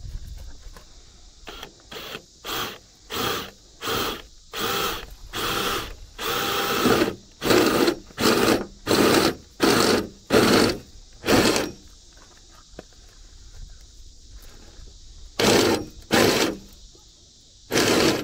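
Cordless drill turning a step cone bit into the aluminium side of a boat, run in short trigger pulses of about half a second: over a dozen in quick succession, then a pause of a few seconds and three more near the end.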